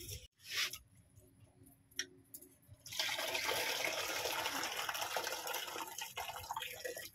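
Rice-washing water poured out of an aluminium pot into a plastic bucket: a steady splashing stream that starts about three seconds in and stops just before the end. A short noise comes about half a second in.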